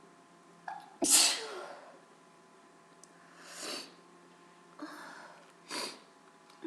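A woman's wet allergy sneeze about a second in, sudden and loud, with a short sound just before it. A few shorter, quieter noises follow.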